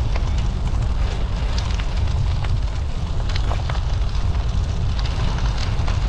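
Wind buffeting the microphone of a moving bicycle, a steady low rumble, over the crackle and scattered small ticks of bicycle tyres rolling on an unpaved track.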